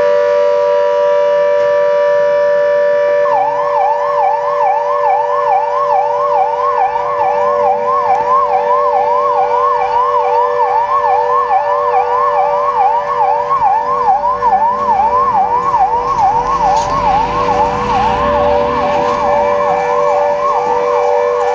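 Emergency vehicle sirens: a steady, unbroken siren tone, joined about three seconds in by a fast yelp siren sweeping up and down about three times a second.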